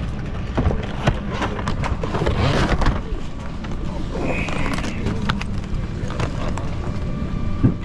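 Scattered knocks and clicks of a hard-shell carry-on suitcase being lifted down and handled, over the murmur of passengers talking in the cabin.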